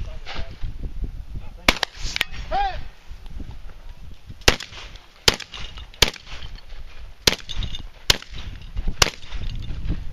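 Competition gunfire: about eight single shots at an irregular pace, roughly a second or less apart, first from a pistol and then from a shotgun.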